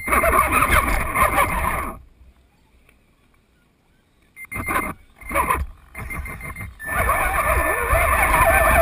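Radio-controlled truck's motor and drivetrain whining in bursts of throttle, heard up close from a camera mounted on the truck as it drives through shallow water: a run of about two seconds, three short blips about five to six and a half seconds in, then a longer run from about seven seconds.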